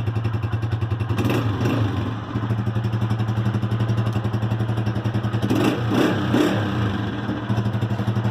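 Unique UD 125 motorcycle's 125cc four-stroke single-cylinder engine idling with a steady, even beat. Two brief throttle blips: one about a second in, another about five and a half seconds in.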